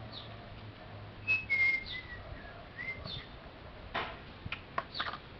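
A few short, clear whistled notes, some held and some gliding up, among brief high falling bird chirps and several sharp clicks.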